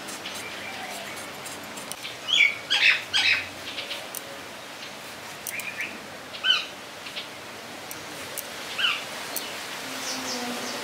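Birds chirping: a quick cluster of calls about two seconds in, then single short, falling chirps every few seconds, over a steady background hiss.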